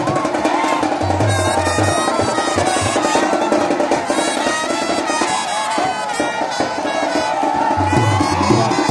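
Live processional music with drums beating and reed or brass wind instruments playing, loud and continuous, over the din of a large crowd.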